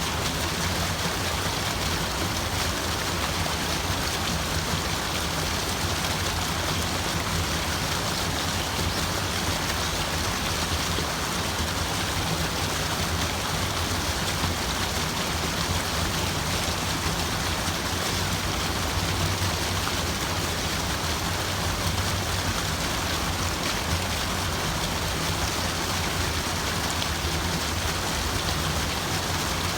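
Steady rushing of running water, an even hiss with no breaks or single drips standing out.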